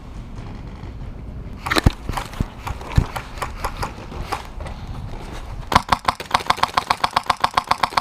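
HPA airsoft rifle firing a long full-auto burst, an even rapid rattle of shots at about nine or ten a second, starting a little under six seconds in. Before it, a few scattered sharp cracks of single airsoft shots.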